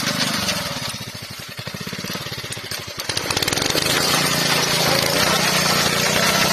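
Small engine of a walk-behind rice reaper running as the machine is pushed through standing rice, cutting it. It runs with a fast, even pulse, then grows louder and fuller from about three and a half seconds in.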